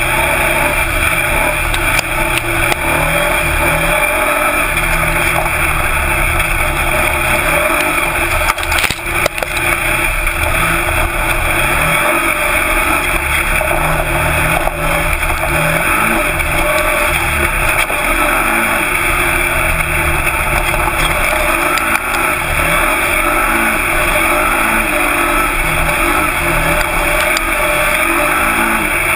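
Twin-turbo Nissan VQ30 V6 of an off-road buggy running hard under load, its revs rising and falling continuously, heard from an onboard camera in the open cockpit.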